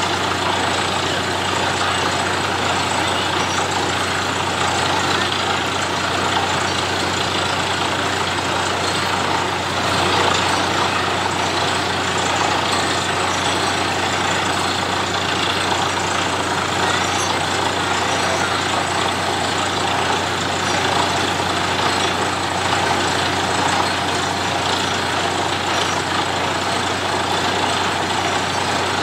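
Truck-mounted borewell drilling rig running steadily while drilling, its engine and air compressor making a loud, continuous drone with a steady low hum, as slurry is flushed up out of the bore.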